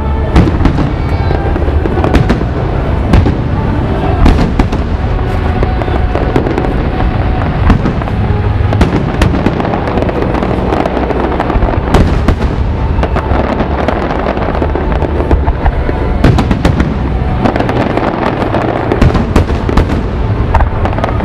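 Fireworks display going off continuously: dense sharp crackling and popping over a steady deep rumble of booming shells, with music playing underneath.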